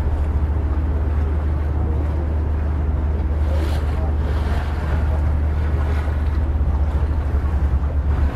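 A boat underway: a steady low engine drone, with wind buffeting the microphone and water washing past.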